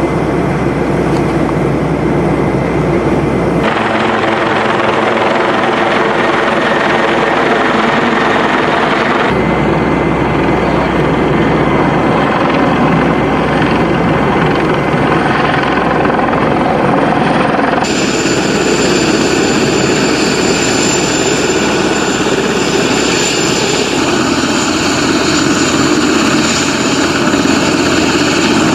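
Steady helicopter engine and rotor noise, its tone shifting abruptly a few times.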